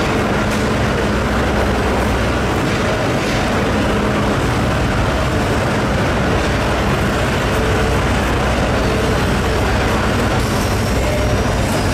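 Steady machine drone with a constant low hum, like running machinery or an engine, at a loud, even level.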